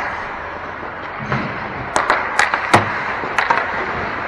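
Ice hockey play in an arena: several sharp clacks of sticks and puck about two to three and a half seconds in, over the steady hum of the rink.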